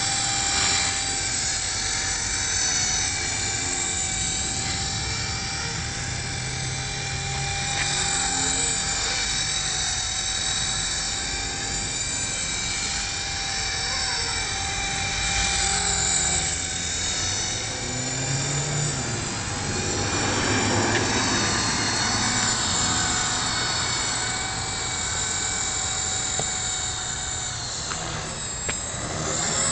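Blade CP Pro 2 electric collective-pitch RC helicopter flying: a steady high motor-and-gear whine with the whir of the rotor blades, its pitch and loudness swelling and dipping as it maneuvers.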